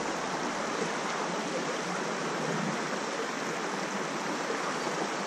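Steady rushing of a flowing river's current, an even wash of water noise with no single events standing out.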